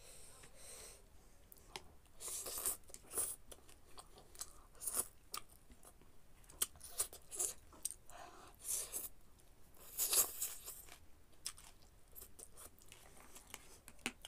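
A person eating noodles close to the microphone: irregular wet chewing, slurps and mouth smacks, with sharp clicks between them.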